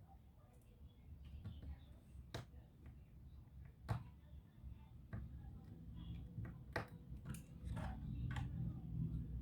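Scattered small clicks and taps, about half a dozen, from laptop parts and tools being handled during disassembly, over a low hum.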